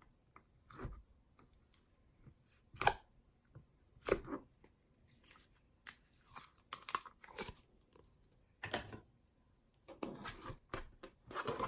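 Jelly slime being squeezed and stretched by hand: scattered short, quiet squelches and bubble pops at irregular intervals.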